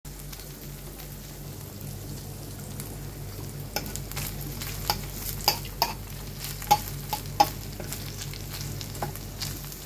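Thin slices of beef sizzling in a hot pan. From about four seconds in, a metal turner scrapes and clicks against the pan as the slices are stirred and turned.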